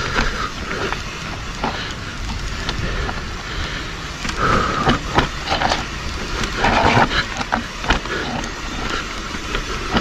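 Mountain bike descending a muddy, root-covered trail: a steady rumble under a continual clatter of knocks and rattles as the bike hits roots, with a couple of short squeaks midway.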